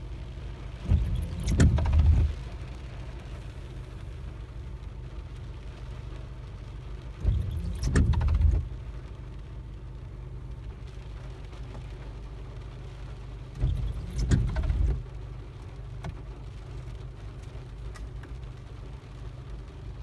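Windshield wiper blades making three sweeps about six seconds apart, each out-and-back pass squeaking and chattering across the glass, over a steady low car rumble. The noise comes from the wipers dragging on a windshield freshly coated with Rain-X water repellent, with new blades fitted.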